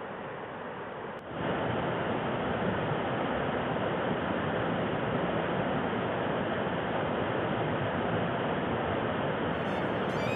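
Mountain river rushing over rocks, a steady rush of water that jumps louder about a second in, where white-water rapids are close by.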